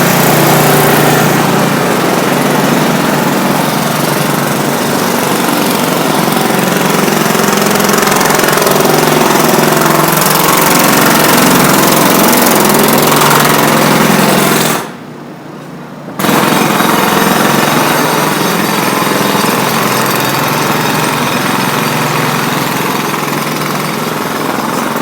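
Loud engine-driven machinery running steadily, a rough rattling noise over a low engine hum. About fifteen seconds in it cuts out abruptly for a second and a half, then carries on without the hum.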